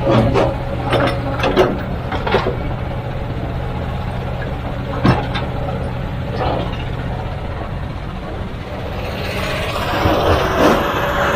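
Heavy machinery at work: a diesel engine runs steadily under a series of sharp metallic knocks and clanks, with a louder rumble building near the end.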